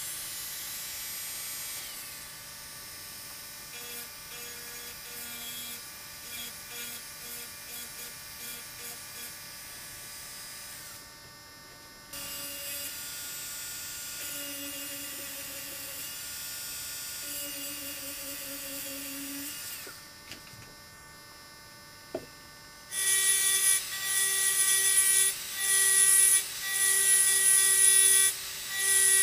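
Small electric rotary engraving tool whining as its burr cuts into a glass, in short strokes and longer steady passes. It falls quiet for a moment about two-thirds through, then runs in louder bursts near the end.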